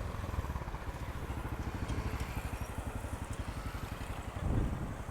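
An engine running steadily with a rapid, even low throb, swelling briefly louder near the end.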